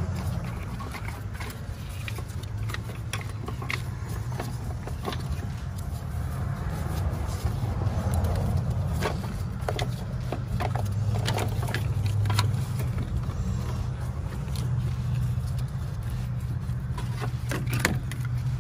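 Ribbed serpentine belt being worked by hand off the pulleys of a 2008 Toyota RAV4's 3.5 L V6: scattered clicks, taps and rubbing, with a few sharper clicks near the end as the belt is pulled out. A steady low hum runs underneath throughout.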